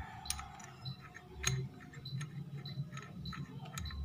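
A few light, scattered metal clicks and ticks as a scooter's CVT centrifugal clutch assembly is handled and a metal rod is worked against its clutch shoes, over a low background hum.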